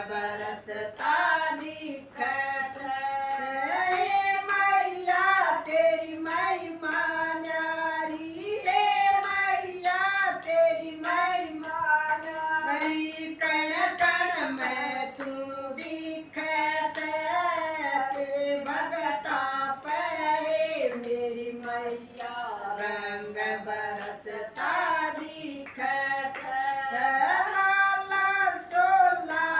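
Women singing a Hindi devotional bhajan without instruments, keeping time with steady hand claps.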